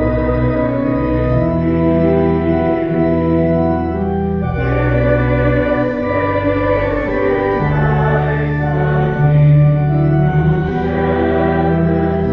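Allen 600 Series digital church organ playing slow held chords over deep bass notes, the chords changing every second or two.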